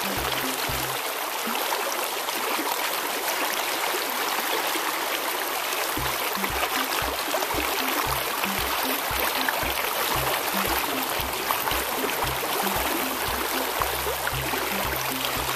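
Fast river current rushing over rocks, a steady water noise, under background music with a low, regular bass beat. The beat drops out about a second in and comes back about six seconds in.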